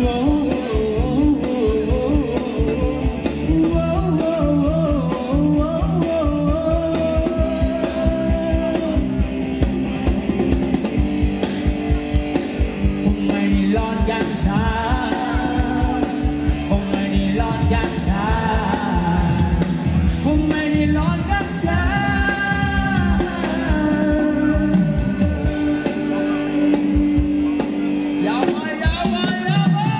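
Live band playing an upbeat Thai ramwong dance song over a steady drum beat, with a singer's voice.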